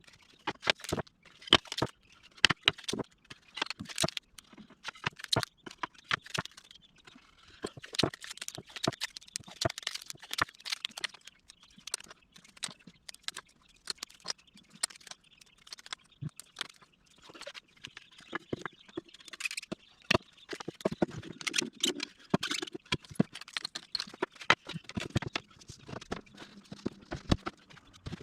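Irregular light clicks and knocks of wooden pieces and clamps being handled while a finger-jointed box is clamped up with plywood cauls.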